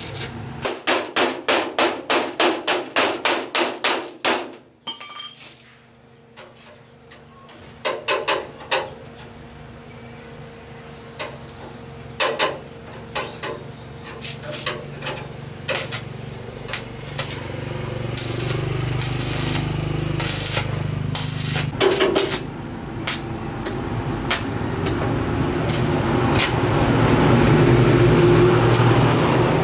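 Hammer blows on metal: a quick, even run of about a dozen strikes, about three a second, then scattered single knocks. In the last part a steady rushing noise builds and grows louder.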